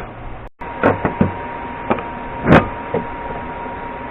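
Several separate knocks and clanks of cut aluminum pieces being handled, the loudest a short scrape about two and a half seconds in, over a faint steady hum.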